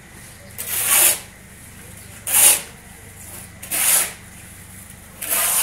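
Four hissing strokes, about one every second and a half, each about half a second long, swelling and then stopping.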